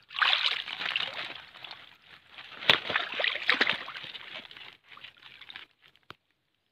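Irregular water sloshing and splashing from people wading in a pond, mixed with the rustle of a woven plastic sack being handled, with a few sharper splashes partway through; it cuts off about a second before the end.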